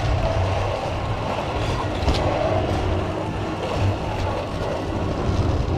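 Zip coaster trolley rolling along its overhead steel rail: a steady rumble with rushing noise as the rider travels down the track.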